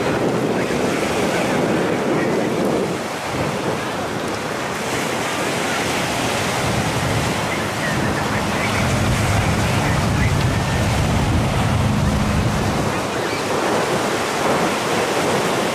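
Wind buffeting the microphone over choppy sea, with waves washing. A boat's engine hums steadily under it from about halfway through for several seconds.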